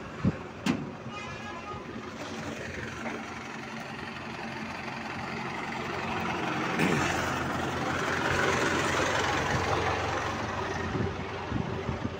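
A vehicle engine running steadily, swelling louder toward the middle and easing off again, with two sharp knocks in the first second.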